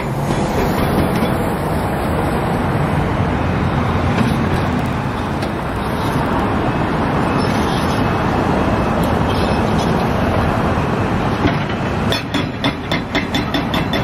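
Diesel semi-trucks pulling side-dump trailers across rough dirt: steady engine drone and trailer rumble. About two seconds before the end this gives way to a fast, even pulsing of about three to four beats a second.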